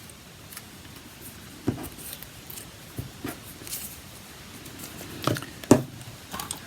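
Scattered light taps and clicks of craft items being handled and moved about on a desk, the sharpest one about a second before the end.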